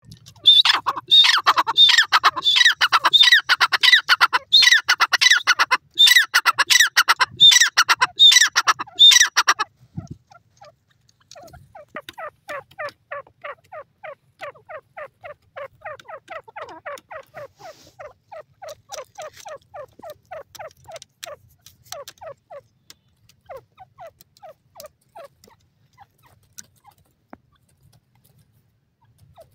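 Grey francolin calling: about five loud bursts of rapid, shrill repeated notes over the first ten seconds. Then a fainter, lower series of short notes comes at about three a second until near the end.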